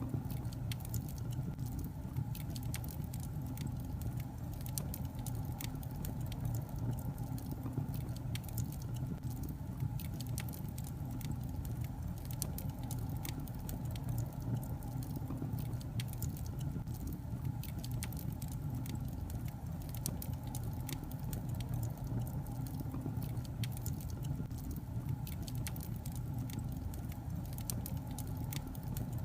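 Wood fire burning in a fireplace: many small, irregular crackles and pops over a steady low rumble of the flames.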